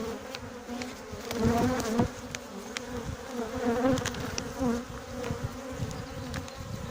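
Buckfast honeybees buzzing around their hive, a wavering hum that swells and dips, with scattered sharp clicks and knocks.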